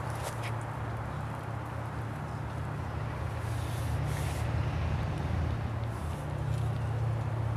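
Steady low rumble of distant road traffic, with a few faint, brief high hisses about a third of a second in, around four seconds in and around six seconds in.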